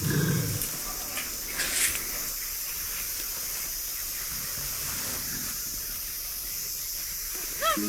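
Steady high hiss of forest ambience, with a couple of short soft noises in the first two seconds. Chirping notes that rise and fall begin just before the end.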